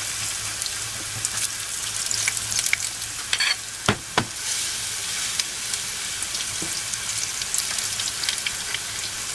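Grated-potato fritters sizzling steadily in shallow hot oil in a frying pan, with scattered crackles and spits. Two sharp knocks sound about four seconds in.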